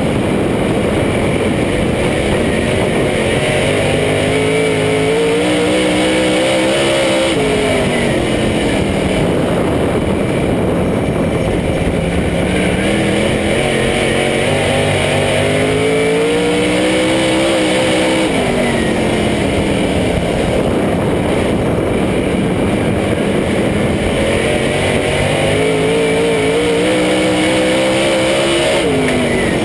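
Dirt-track race car's engine at racing speed, heard from inside the cockpit. Its pitch climbs steadily under acceleration and then falls off sharply, three times over.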